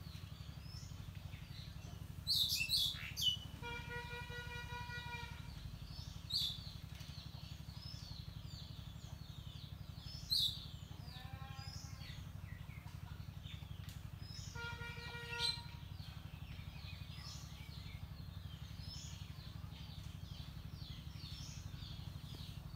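Small birds chirping in tree foliage. There are sharp, high chirps, loudest about two to three seconds in and again near six and ten seconds, over fainter twittering. Twice, a steady pitched tone lasts about a second, and near eleven seconds a rising pitched call sounds, over a low steady hum.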